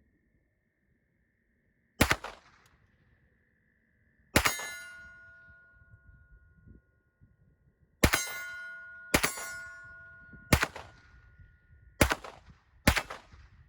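Seven single shots from a Sig Sauer MPX Gen 2 9mm pistol, fired at an uneven pace one to three seconds apart. Several shots are followed by a clear ringing clang that lasts a second or more, the sound of rounds hitting a steel target.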